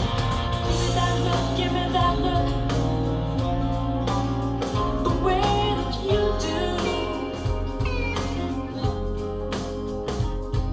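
Music: a song with a singing voice over steady bass notes and a beat.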